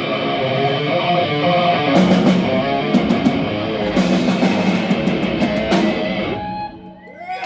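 Death metal band playing live, with distorted electric guitars, bass and drums hitting several sharp accents. The music stops about six seconds in, and crowd whistles and cheers begin as it dies away.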